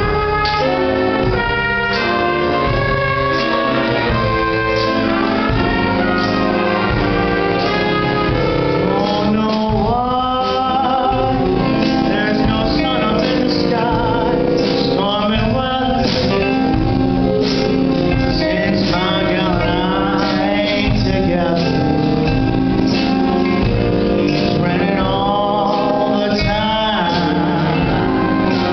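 Recorded music: a song with a solo singer, the voice wavering with vibrato, over instrumental accompaniment.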